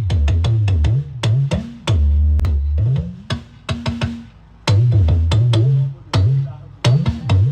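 Live band sound check: drums and a bass line playing a groove in short stop-start passages, with several breaks where the music drops away before coming back in.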